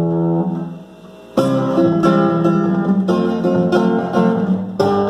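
Instrumental intro of a festa junina marchinha on a plucked string instrument: a chord rings out and fades, then about a second and a half in a steady strummed rhythm starts.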